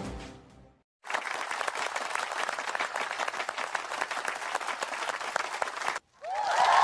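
Applause sound effect: a crowd clapping for about five seconds, cutting off abruptly. A loud, steady pitched tone starts just before the end.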